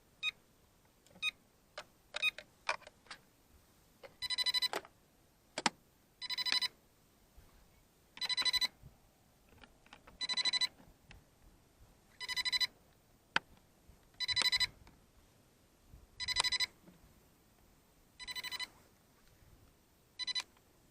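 Electronic beeping: a few short beeps, then from about four seconds in a longer beep repeating every two seconds, like an alert tone.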